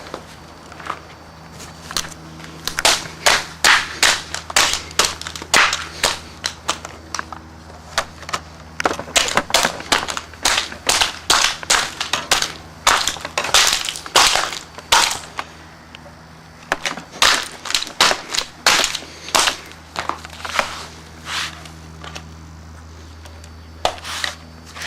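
Plastic RC toy Hummer being smashed apart: many sharp cracks and snaps of breaking plastic at uneven intervals, over a steady low hum.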